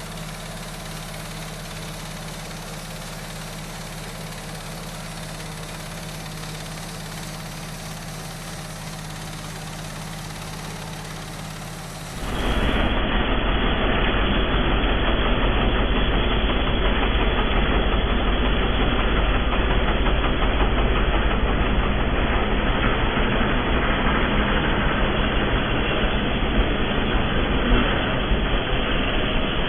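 Small engine of a bandsaw mill running steadily. About twelve seconds in it cuts abruptly to a much louder, rougher engine noise that continues.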